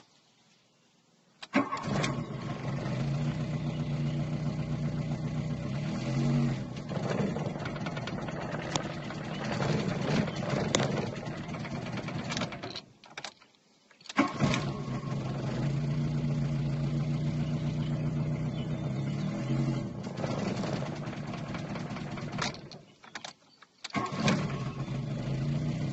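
VW Golf Mk2's CIS-injected four-cylinder petrol engine starting, running and then cutting out, three times over, with a misfiring, rough idle. The stalling and misfire come from a faulty Hall sender in the distributor.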